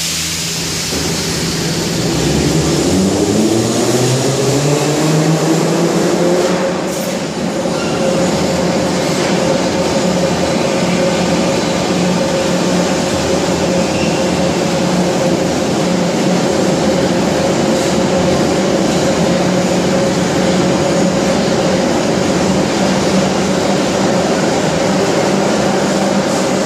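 81-717/714 'Nomernoy' metro train pulling out of the station: the traction motor whine climbs in pitch over the first several seconds as it accelerates. Then comes a steady run of motor whine and wheel rumble as the cars go past.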